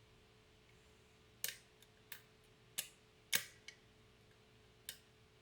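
Sharp clicks from a pin-tumbler challenge lock being picked: pins clicking as the pick lifts them under tension. There are about six or seven irregular clicks, the loudest a little past the middle.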